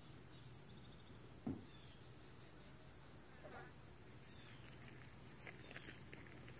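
Steady high-pitched drone of insects, with a single soft thump about a second and a half in from the colt's hoof on the horse trailer's ramp.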